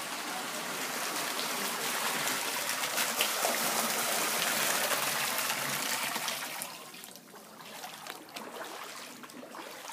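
Running water pouring and trickling steadily, dropping off sharply to a quieter trickle about two-thirds of the way through.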